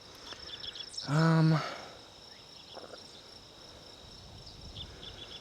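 A man's short, steady-pitched 'hmm' about a second in, over a continuous high-pitched buzz of insects.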